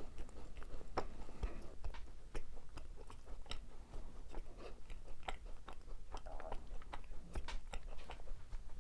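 Close-miked chewing and biting of macarons, a rapid irregular run of small crisp crunches and mouth clicks.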